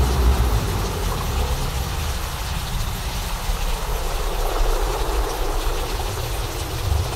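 Simulated thunderstorm: a deep, continuous thunder rumble, strongest right at the start, under a steady hiss of noise.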